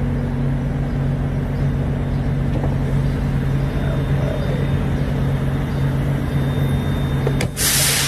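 Semi-truck's diesel engine idling with a steady low drone. Near the end comes a sudden, short hiss of released air from the truck's air brakes.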